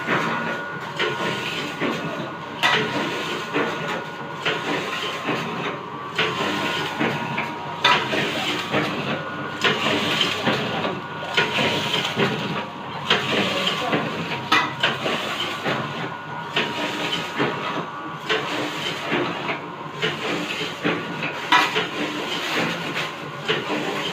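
Automatic packing machine for ground corn rice running. A steady mechanical clatter and hissing is punctuated by a sharp clack about every one and a half to two seconds as it cycles.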